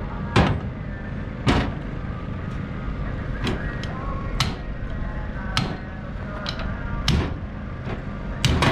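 Sharp metal-on-metal blows, about seven at irregular intervals of roughly a second, knocking a worn carrier bearing off a 1970 Chevrolet C10's driveshaft.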